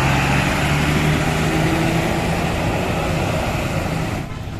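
A bus engine running close by: a loud, steady mechanical rumble with heavy noise, and no telolet horn. The sound drops away suddenly a little after four seconds in.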